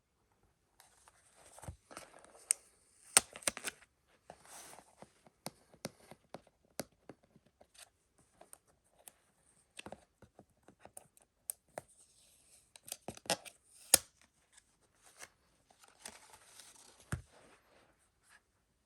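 Plastic shrink-wrap being torn and crinkled off a Blu-ray steelbook case, in several short stretches, with scattered sharp clicks and taps as the case is handled.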